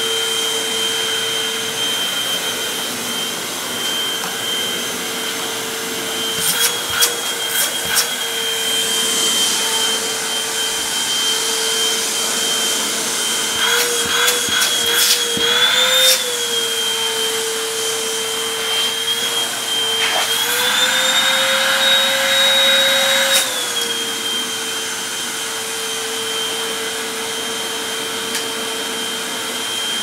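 Hoover WindTunnel Max upright vacuum cleaner running with a steady motor whine. Its pitch rises twice for a few seconds, around the middle and again later, then settles back. A few sharp clicks come in two short clusters.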